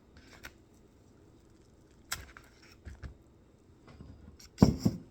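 Things being handled close to the microphone, with scattered clicks and rustles and a heavier knock near the end.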